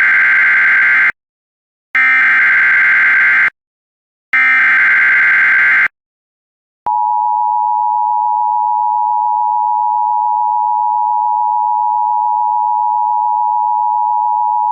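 Emergency Alert System SAME header from a NOAA Weather Radio broadcast: three identical screeching digital data bursts, each about a second and a half long, then a steady single-pitch alert tone for about eight seconds. The sequence signals that a new warning is about to be read.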